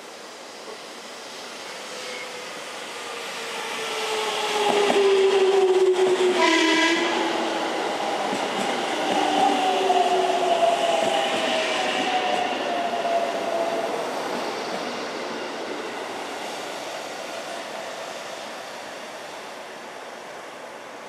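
A JR Central 313 series electric train pulling into the platform and braking: its motor whine falls steadily in pitch as it slows, with a brief horn blast about six and a half seconds in. The train noise fades as it comes to a stop.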